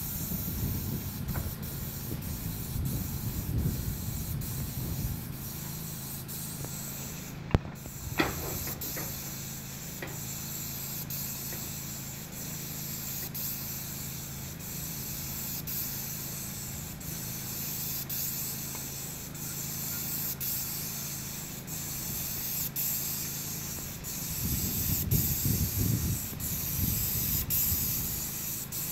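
Paint spray gun hissing steadily as it sprays a first coat of roof paint onto concrete roof tiles, over a steady low hum, with a sharp click about seven and a half seconds in.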